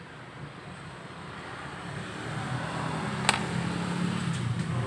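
Hot-air rework gun blowing onto a vape mod's circuit board: a steady rush of air over a low fan-motor hum, growing louder over the first couple of seconds. A single sharp click about three seconds in.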